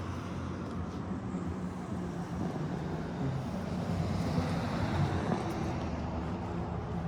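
A machine running steadily with a low hum and a rushing noise over it, unbroken throughout.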